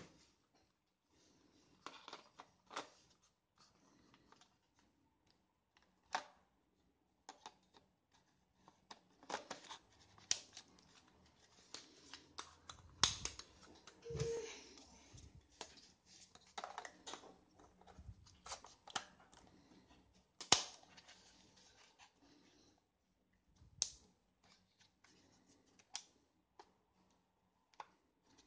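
Hands handling a Canon EOS 250D camera kit and its packaging: quiet, scattered clicks, taps and rustles, with a longer rustle about halfway through and a sharper click a little later.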